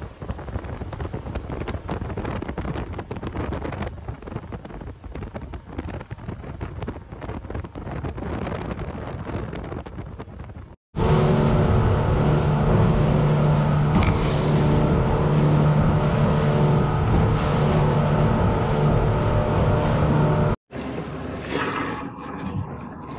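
A boat under way in rough, windy conditions. Wind and water noise with many short knocks comes first. After a sudden cut comes about ten seconds of a loud, steady boat engine drone at constant speed, and after another cut the wind noise returns.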